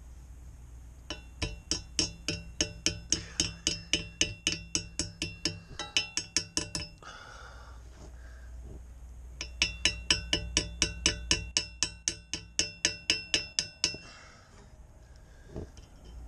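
Pliers tapping rapidly on the propeller shaft's nut and pin, setting the metal propeller ringing like a bell. The strikes come about four a second for some six seconds, pause, then run again for about four seconds.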